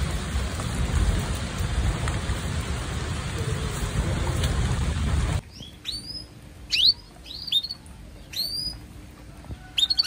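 Steady rushing of water, rain or a fast-flowing river, cuts off abruptly about five seconds in. After it a bird calls repeatedly in short notes that slide down in pitch over quieter background.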